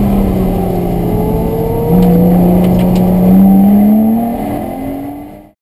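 Lotus Exige S's supercharged 3.5-litre V6 heard from inside the cabin on track: the engine note sags slightly, then about two seconds in the throttle opens and the revs climb under load. The sound fades out near the end.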